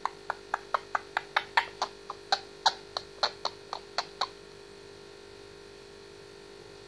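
Indian ringneck parakeet making a quick run of sharp clicks, about five a second, that stops after about four seconds.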